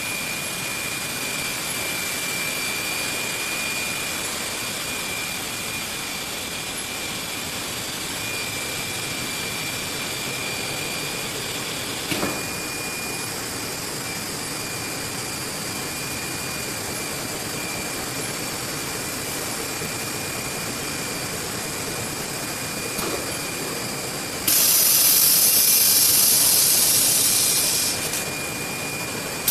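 Fully automatic two-layer PE bubble wrap making machine running, a steady mechanical noise with a thin high whine. Near the end a loud hiss cuts in for about three seconds, then stops, and starts again at the close.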